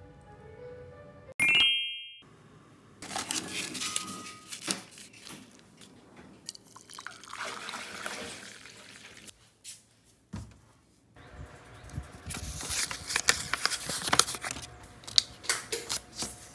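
Water poured into a ceramic mug of black coffee, splashing and trickling for several seconds. This comes after a short bright chime about a second and a half in, and is followed by a stretch of rustling and sharp clicks.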